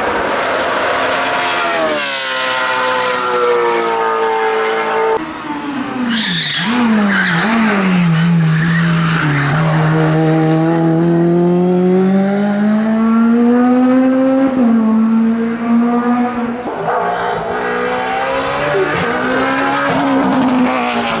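Hillclimb race car engine at full noise. The revs fall in steps through downshifts about two and five seconds in, with quick throttle blips, then climb slowly under power, with further gear changes later. Tyre squeal is mixed in.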